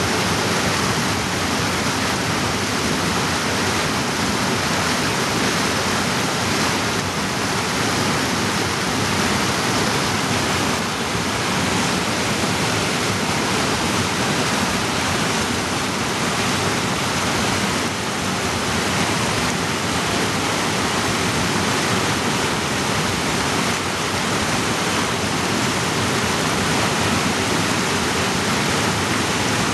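Mountain creek rushing over boulders in white-water cascades, a loud, steady rush of water with no pauses.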